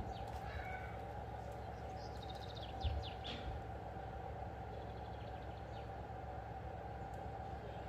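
A few short bird chirps over a steady background hum, with a dull low thump about three seconds in.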